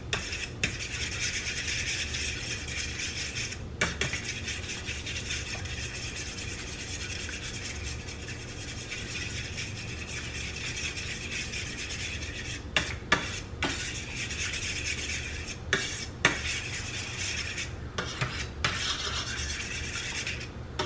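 Eggs being beaten with a fork on a plate: a steady scraping of the fork across the plate, with sharp clicks of the fork against the plate now and then, more of them in the second half.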